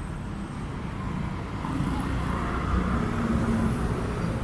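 Road traffic on a busy city street: a steady low rumble of car and heavy-vehicle engines with tyre noise.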